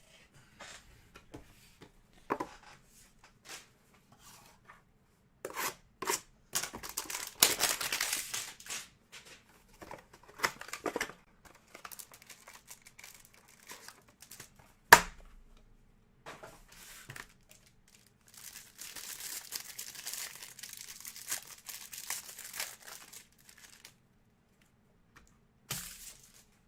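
Trading-card hanger box and its packaging being torn open by hand: irregular bursts of tearing and crinkling. There is one sharp snap about fifteen seconds in, and several seconds of steady crinkling later on.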